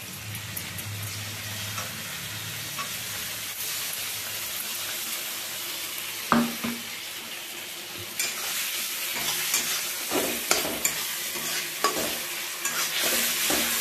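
Onion-tomato masala with freshly added ginger-garlic paste sizzling steadily in an aluminium kadai while a metal spatula stirs and scrapes it. There is a knock a little after six seconds. From about eight seconds on, the strokes come quicker with scraping and clicks of the spatula on the pan.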